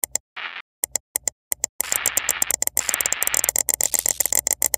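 Digital glitch sound effect of stuttering static: short bursts of hiss broken by silent gaps, turning about two seconds in into a dense, rapid crackling stutter.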